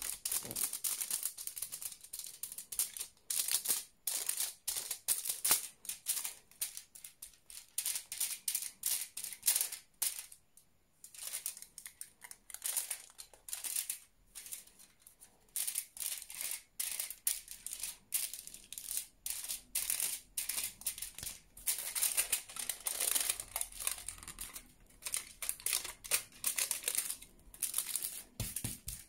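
Thin aluminium kitchen foil crinkling and rustling as it is handled and a glue brush is worked along its edges: a dense run of quick, irregular crackles with a brief lull about ten seconds in.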